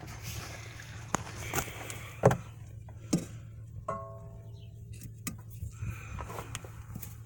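Hand tools clicking and knocking against metal while a rusted part on a car's rear air shock is cut off. The loudest knock comes a little over two seconds in, and a short metallic ring sounds about four seconds in. A steady low hum runs underneath.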